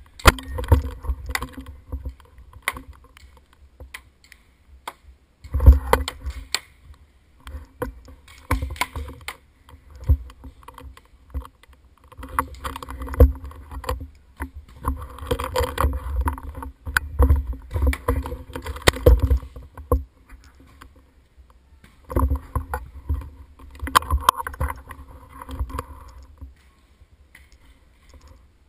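Paintball markers firing: sharp pops in bursts, mixed with knocks and rumble from the gun-mounted camera being handled.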